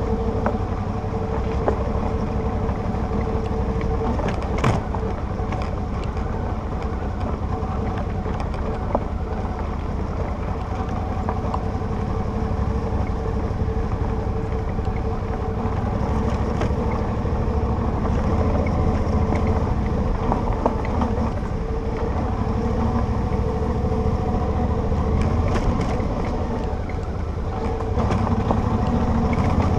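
Motorcycle engine running steadily at road speed on a rough gravel track, heard from on board the bike, with a few sharp knocks. The level dips briefly near the end and then picks up again.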